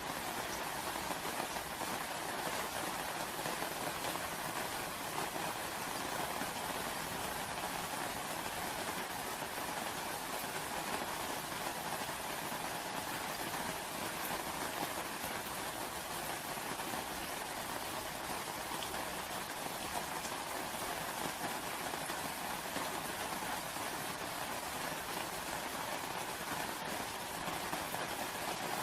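Steady rain falling: an even, unbroken hiss of drops with no pauses or single loud hits.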